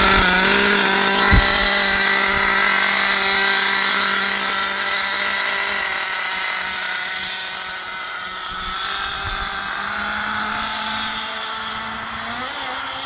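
Radio-controlled buggy's small motor running with a steady high buzz, fading as the car drives away down the track, with a short thump about a second in.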